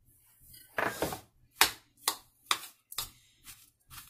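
Metal spoon knocking and scraping against a ceramic bowl while mixing a dry sweet samosa filling, about five sharp clinks at irregular half-second spacing with lighter taps after.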